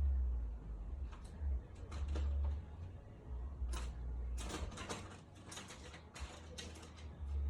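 Hand tools and small metal engine parts clicking and scraping during cam sprocket fitting, with a quick run of sharp clicks from about four seconds in until shortly before the end.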